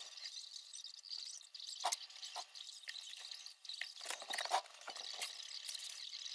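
Light clicks and taps of thin balsa wood parts and a plastic glue bottle being handled on a wooden table, a few separate knocks and then a cluster about four seconds in. A sheet of paper plans rustles near the end.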